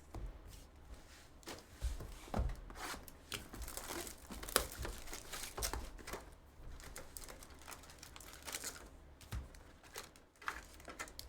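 Trading-card pack wrappers being torn open and crinkled, a steady run of irregular short crackles and rustles, loudest about four and a half seconds in.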